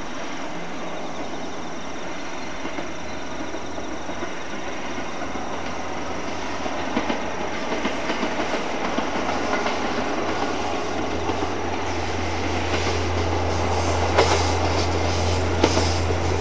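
KiYa E195 diesel rail-transport train approaching: a low engine drone that grows steadily louder, with wheels clicking over rail joints in the last few seconds.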